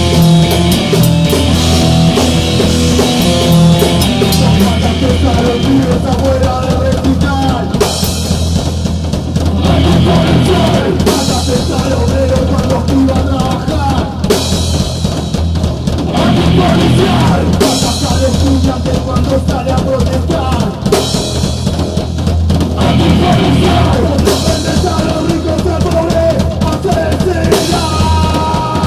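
Punk rock band playing loud and steady: drum kit with bass drum and snare, bass and electric guitar, with cymbal crashes about every two seconds, in a rough rehearsal recording.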